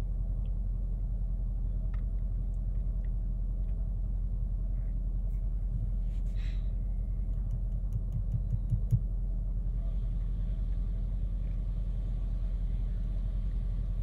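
Mercedes-Benz GLE (166) petrol engine idling with a steady low hum, and a few soft bumps about eight to nine seconds in.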